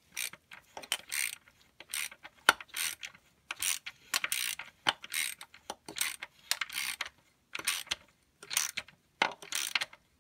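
Hand ratchet clicking in short strokes, roughly once a second, as it turns a 3/8-inch drive extension that threads a steel thread-repair sleeve into the drain hole drilled in a Ford PTU housing.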